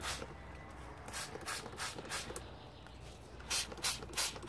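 Hand trigger spray bottle squirting liquid onto plant leaves: a quiet stretch, then three short hisses of spray about half a second apart near the end.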